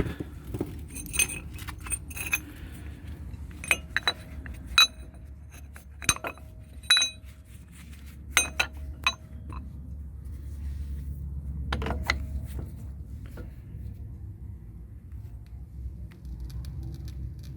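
Metal tools and brake parts clinking: a dozen or so sharp ringing clinks, singly and in quick clusters, as channel-lock pliers and an old brake pad are worked against the caliper to push its piston back in. The clinks die away in the last few seconds, leaving a steady low hum.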